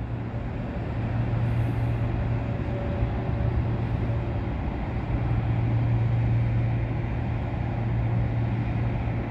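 A steady low mechanical hum over a constant rumble, growing slightly louder about halfway through.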